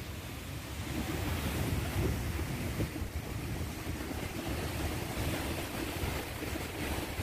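Turbulent, foaming water of the Chenab River rushing steadily below the Head Marala barrage, with wind buffeting the microphone.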